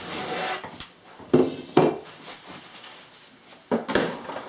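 Plastic wrap crinkling and cardboard rustling as a glass cookware lid is unwrapped, with two sharp knocks about a second and a half in and another near the end.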